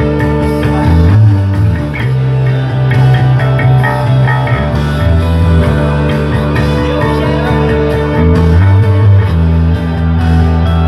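Electric bass played fingerstyle, holding low notes that change every second or two, along with a recorded rock band track with drums and cymbals.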